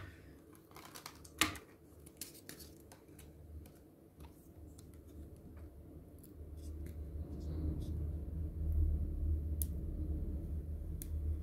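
Plastic pry pick clicking and scraping against a cracked glass screen protector on a phone screen as the broken glass is worked loose, a scatter of sharp ticks, one louder about a second and a half in. A low rumble builds from about halfway.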